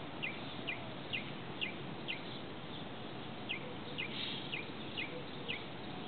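A small bird calling over and over, short chirps that fall in pitch, about two a second, over a steady background hiss.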